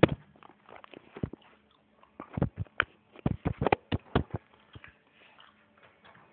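Irregular knocks, taps and rubbing of the recording phone being handled and set in place, a quick cluster of sharp clicks in the middle.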